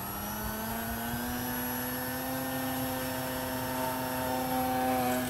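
Electric motor and propeller of a Yak 55 EPP foam RC airplane running as it flies, a steady buzzing drone that rises slightly in pitch over the first second or two and then holds steady.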